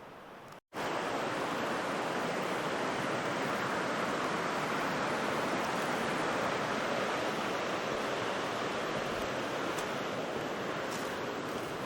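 Steady rushing of a mountain stream tumbling over waterfalls, an even roar starting abruptly about a second in.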